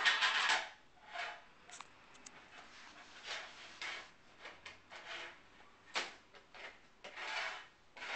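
Irregular bursts of rubbing or scraping noise, loudest at the start and again near the end, with a few sharp clicks between.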